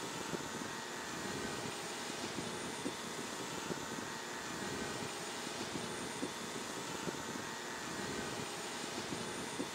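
Steady aircraft-like whirring noise, with a faint whine that rises and falls about every two and a half seconds.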